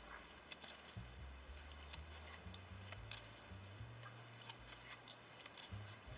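Faint handling noise of shuttle tatting: small scattered ticks and rustles as the thread is pulled and a plastic tatting shuttle is passed through the loop to tie double stitches, over a low steady hum.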